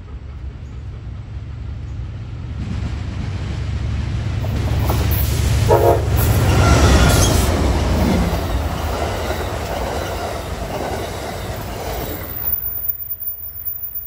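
Amtrak passenger train led by a GE P42DC diesel locomotive passing close by. The rumble of engine and wheels builds as it approaches, is loudest about halfway through as the cars go by, and falls away near the end.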